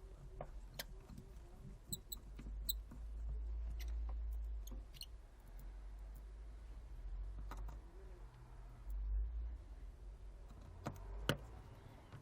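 Small clicks and taps of tools and iPhone parts being handled during reassembly, a few with a brief metallic ring, over a low rumble of handling. The sharpest click comes about 11 seconds in.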